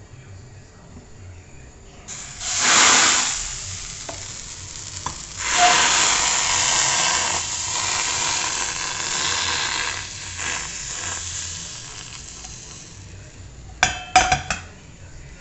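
Thin pancake batter sizzling as it hits a hot frying pan: a short burst about two seconds in, then a longer sizzle from about five and a half seconds that slowly fades. A few sharp clicks near the end.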